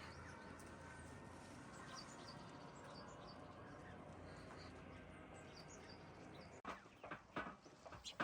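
Faint outdoor hush with a few small, high bird chirps in the middle; near the end it changes abruptly to a run of louder short sounds.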